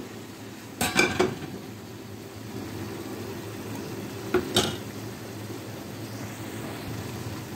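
Clinks of kitchenware: three quick knocks about a second in and two more about four and a half seconds in, over a steady low hum.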